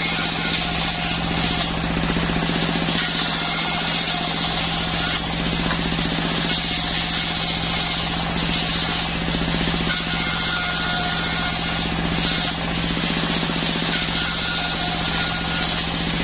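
Machine-powered circular wood saw running with a steady, unbroken drone, and a hiss that swells and fades every few seconds.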